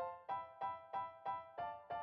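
Background music: evenly repeated notes, about three a second, each struck sharply and fading.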